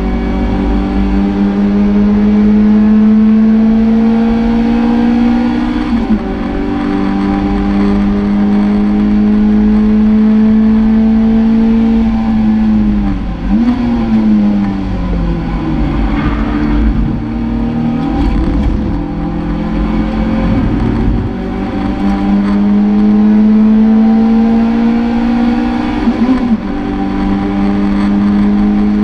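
Toyota MR2 race car's engine heard from inside the cabin under hard acceleration, its pitch climbing steadily, then dropping sharply at an upshift about six seconds in. Near the middle the note falls away under braking with a quick rise from a downshift blip and runs unevenly through a corner. It then climbs again, with another upshift near the end.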